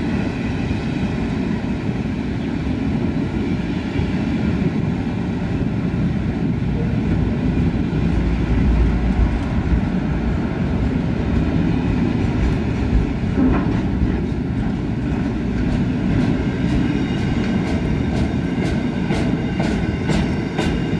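Freight wagons rolling past on the track: a steady rumble of wheels on rail, with a run of sharp wheel clicks in the last few seconds.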